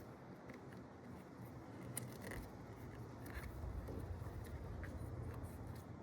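Pocketknife cutting and trimming a battery terminal cover so it will fit over the cable end: faint scraping and cutting with a few small clicks.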